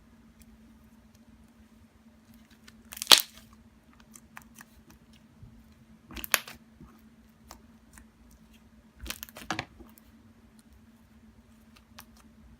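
Butter slime being handled: three short bursts of sticky crackling about three seconds apart, with faint clicks between, over a low steady hum.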